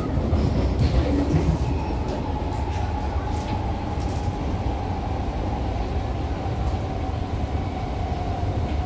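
SMRT C151A metro train running, heard from inside the passenger car: a steady low rumble with one steady whine held through it.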